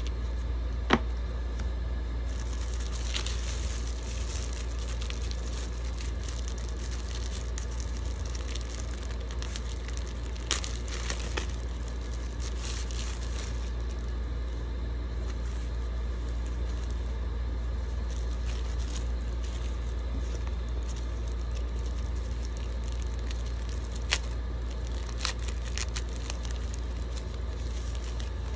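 Paper leaflets and tissue wrapping rustling and crinkling as they are handled, with a few sharp clicks or taps. A steady low hum runs underneath.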